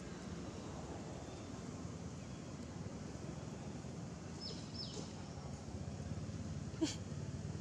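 Steady outdoor background noise with a low rumble. About four and a half seconds in come two short, high, falling chirps, and near the end a single sharp click.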